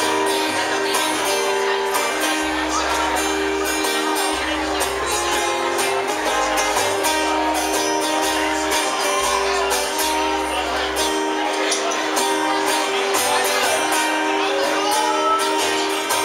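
A live band playing amplified music: acoustic and electric guitars with bass and drums, including held notes and changing bass notes under steady drum hits.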